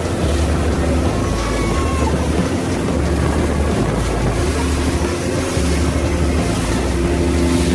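Pontoon boat's motor running steadily at towing speed, with the wake water rushing behind and wind buffeting the microphone.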